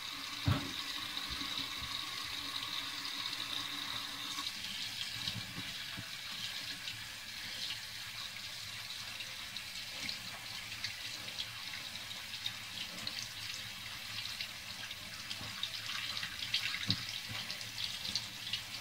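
Faucet water running steadily into a stainless steel sink while hands are rubbed and rinsed under the stream. There is a soft knock about half a second in and another near the end.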